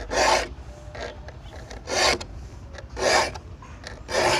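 Bahco saw file rasping across the steel teeth of a hand saw during sharpening: four short strokes about a second apart, each stroke dressing two teeth at once.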